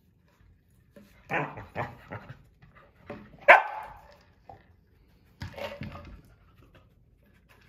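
Nova Scotia duck tolling retriever barking in three short bursts, the loudest bark about three and a half seconds in.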